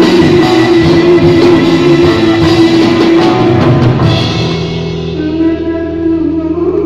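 Live rock band playing loudly, with drum kit, bass guitar and violin. About four seconds in, the drums and cymbals stop and the music thins to a held low note with a wavering violin line over it.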